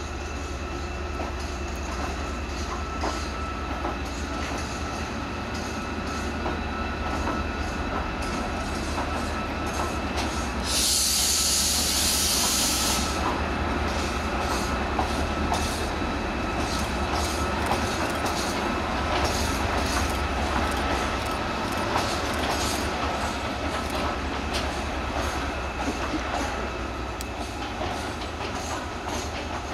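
Two Class 68 diesel-electric locomotives, each with a Caterpillar V16 engine, running as they haul a container freight train past: a steady engine hum with a steady high whine over it, and wheels clicking on the rails. About eleven seconds in there is a loud hiss for about two seconds.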